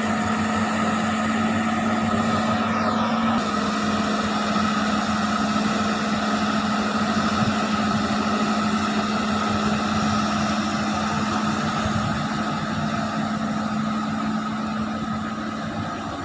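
Excavator's diesel engine running steadily with a constant hum, with a brief falling whine about three seconds in.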